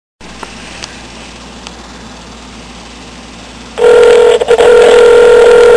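Faint telephone-line hiss with a few small clicks, then about four seconds in a loud steady ringback tone that lasts about two seconds as the call rings through.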